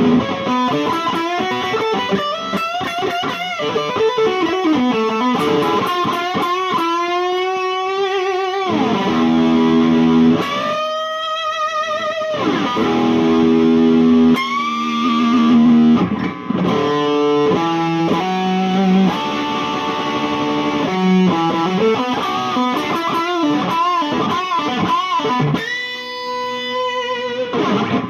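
IYV ILP 400 FR electric guitar played through an amp: a lead line of sustained single notes with wide, wavering vibrato and pitch glides, mixed with short chordal passages.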